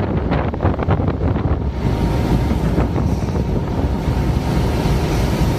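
Strong wind blowing across the microphone aboard a ship in a storm, with the rush of heavy seas beneath it.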